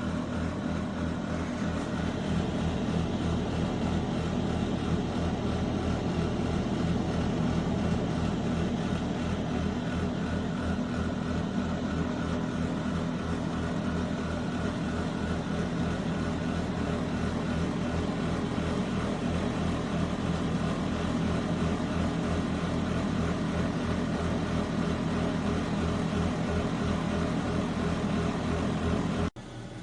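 Countertop air fryer toaster oven running, its convection fan motor giving a steady, even hum with a low buzz that cuts off abruptly near the end.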